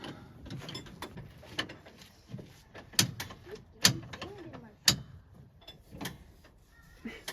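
Metal clicks and knocks from a tool working the seized brake slack adjuster under an old tractor: light ticks, then four sharp loud clicks about a second apart in the second half.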